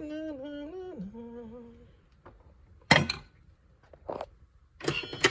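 A person humming a short wordless tune that steps down in pitch and stops after about two seconds. Then comes a sharp knock about three seconds in, and a couple of softer knocks near the end.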